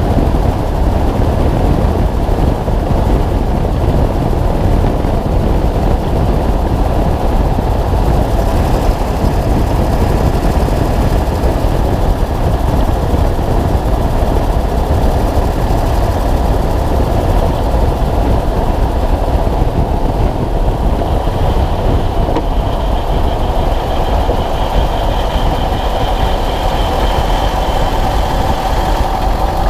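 Ford F250's 7.3 L Power Stroke turbo-diesel V8 running while the truck drives, heard from a camera mounted on the suspension spring underneath, with steady loud road and wind noise. A faint high tone joins about two-thirds of the way through.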